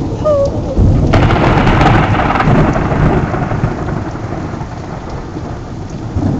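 Thunderclap over steady rain: a low rumble about a second in breaks into a sharp crack, then rolls and fades over the next few seconds.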